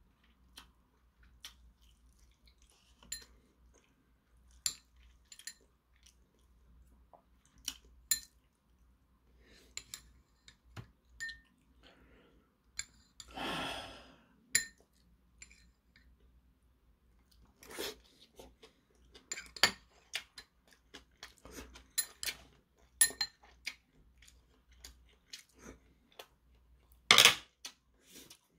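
Eating sounds: scattered clicks of metal chopsticks against a ramen cup and dishes, with chewing between. A longer noisy sound comes about halfway through, and a single loud short burst near the end.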